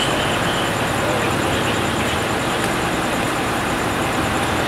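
Steady rumble of an idling fire engine's diesel engine, with a faint, rapidly pulsing high-pitched whine over it.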